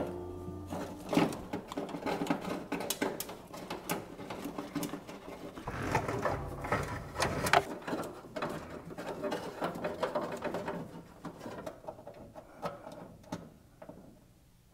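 Handling noise from a wire being pushed through a rubber firewall grommet: scattered light clicks, rustles and scrapes, thinning out near the end.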